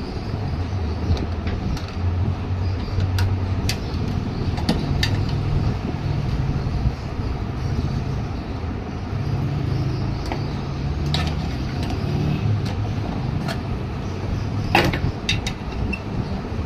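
Scattered clicks and taps of tools and metal parts as a microwave oven's magnetron is taken apart, over a steady low rumble. One sharper clack comes near the end.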